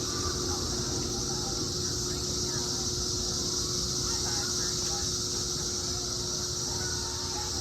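Chorus of cicadas buzzing as one steady, unbroken high hiss, with a low steady hum beneath.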